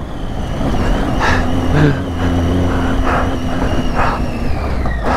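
Triumph Tiger 800's three-cylinder engine running steadily on the throttle during a steep gravel-trail climb. A deep rumble sits under it, and a few short surges of rough noise come through in the middle.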